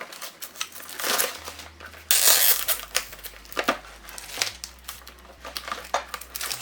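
Plastic wrap crinkling and crackling as it is pulled off a box, in irregular bursts, with a louder patch of crinkling about two seconds in.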